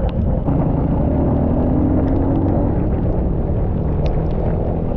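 Honda 150cc dirt bike running on the move, with a steady low rumble of engine, wind and road noise.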